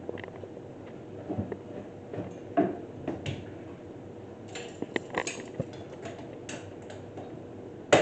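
Scattered clinks and knocks of metal milking-pipeline parts being handled while a milk filter is fitted, with a louder knock near the end, over a steady background hum.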